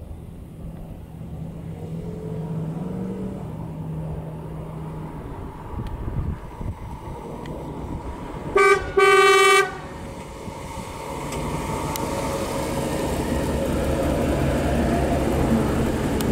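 1957 Chevrolet Bel Air with a 350 cubic-inch GM crate V8 and four-barrel carburettor driving up. The engine rises in pitch briefly near the start, then grows steadily louder as the car approaches. A little past halfway a car horn sounds twice, a short toot then a longer one, the loudest sounds here.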